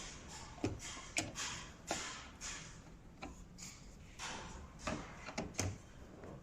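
Irregular light clicks and knocks of a Phillips screwdriver undoing the screws on the back cover of a top-loading washing machine.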